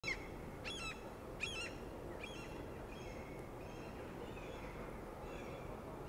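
Gulls calling as they circle overhead: several loud harsh calls in the first couple of seconds, then fainter calls further off.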